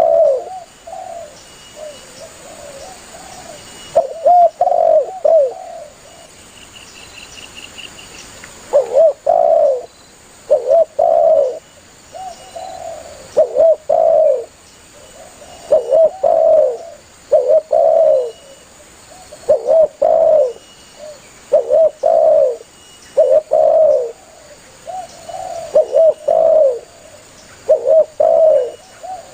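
Spotted dove (tekukur) cooing vigorously: loud repeated coo phrases, one every second or two, with a pause of about three seconds early in the run. This is the calling song used to lure in other doves.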